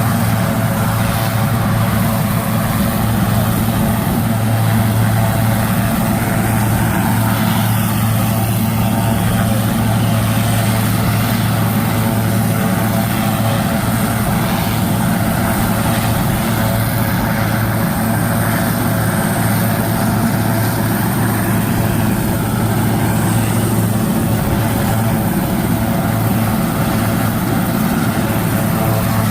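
An engine running at a steady speed, giving an even, unchanging hum.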